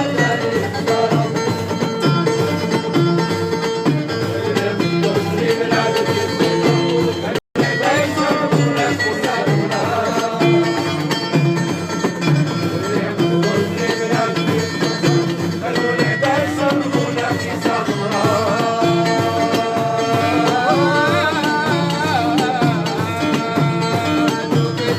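Live folk music in a Middle Eastern style: instruments play a steady repeating rhythm under a wavering melody. The sound cuts out for an instant about seven seconds in.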